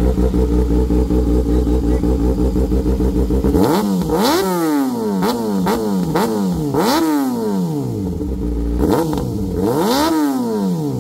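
Kawasaki Ninja inline-four sportbike engine through an aftermarket exhaust, idling steadily, then revved in a run of quick throttle blips that rise and fall sharply, with short cracks among them. It settles back briefly before one last blip near the end.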